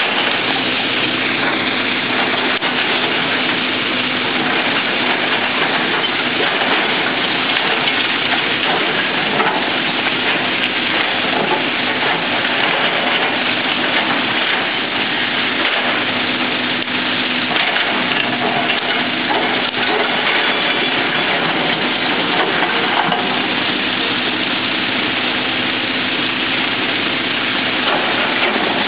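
Kobelco hydraulic excavator running as it digs among quarried rock: a steady engine hum under a dense, even hiss that does not let up.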